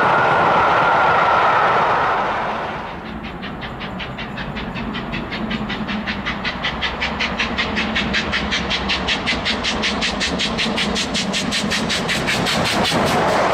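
A passing train's coaches roll by with a steady rush. After about three seconds this gives way to the rapid, even exhaust beats of LMS Jubilee class three-cylinder steam locomotive 45699 Galatea, working hard at speed. The beats grow steadily louder as it approaches.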